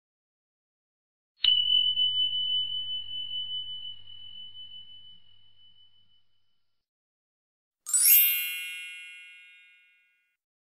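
Two sound effects for a like-and-subscribe animation. About a second and a half in, a single bell-like ding rings out and fades over about four seconds with a slow wobble. About eight seconds in, a bright, sparkly chime fades away in about a second and a half.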